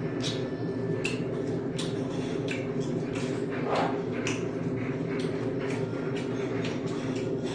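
Metal chopsticks clicking and clinking against dishes and the grill at a meal, short sharp clicks at irregular intervals, about two a second, over a steady low room hum.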